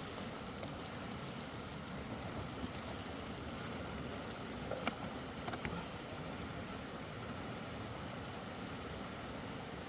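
Steady rushing background noise with a few light clicks a few seconds in.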